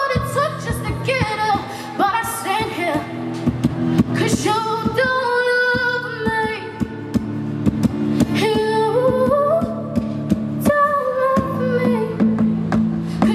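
A woman singing a slow melody with long held notes that bend and waver in pitch, accompanied by an acoustic-electric guitar.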